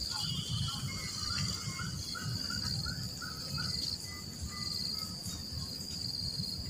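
Insects droning steadily at one high pitch, with a bird giving a quick run of short repeated notes a little past the middle.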